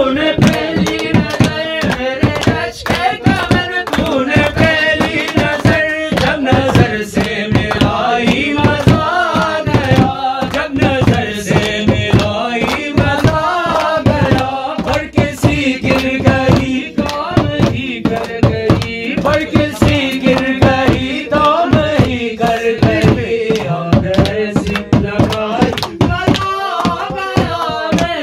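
A man singing a South Asian song into a handheld microphone, amplified through a PA speaker, over a quick tabla-style drum beat.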